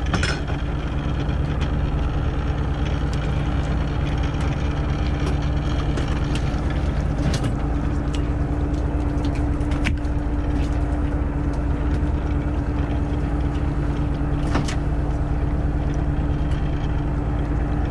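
Small fishing boat's engine running steadily with a constant hum while a longline is hauled in over the rail roller. A few sharp clicks stand out from the gear.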